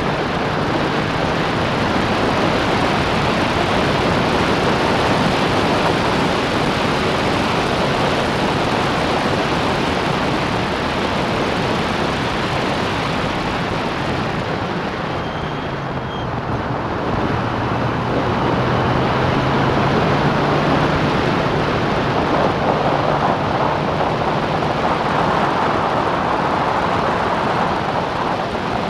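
Wind rushing loudly over the onboard microphone of an open-cockpit Clubman racing car at speed, with its engine running steadily underneath. The rush eases briefly about halfway through.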